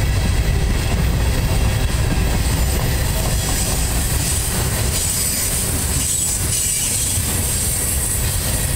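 Freight cars rolling past on jointed steel wheels: a steady heavy rumble of wheels on rail, with a high wheel squeal that grows stronger about halfway through as the wheel flanges grind through the sharp curve.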